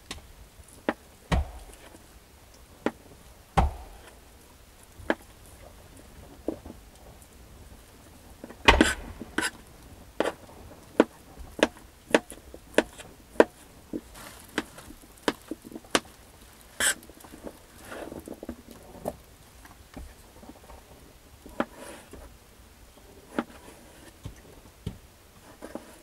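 Irregular knocks, taps and clicks of things being handled and set down, busiest in the middle stretch, with the loudest knock about nine seconds in.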